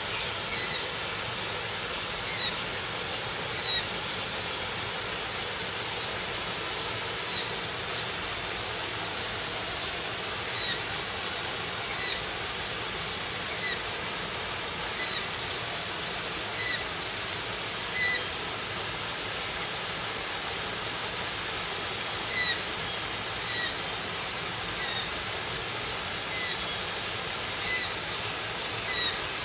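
A bird repeating a short, high chirp every second or so, over a steady rushing hiss.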